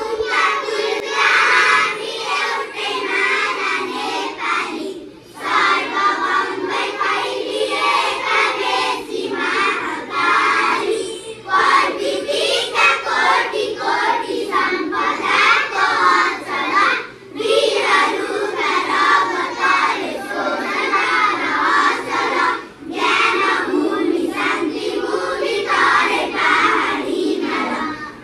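A class of schoolchildren singing the national anthem together, in phrases with short breath pauses about every six seconds.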